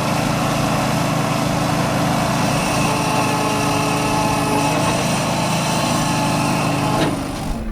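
Engine of a small log-handling machine running steadily at a constant speed. The sound changes abruptly near the end.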